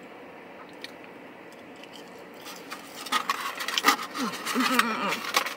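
Crunching and chewing of crispy crinkle-cut fries: a quick run of sharp crunches beginning about halfway through, with a few brief sounds of the eater's voice near the end.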